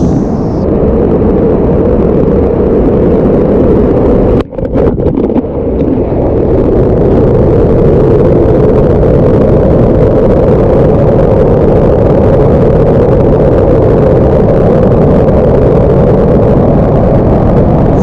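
Loud, steady roar of a waterfall pouring down close by, heard from right behind the curtain of falling water. The sound briefly drops out and crackles about four and a half seconds in.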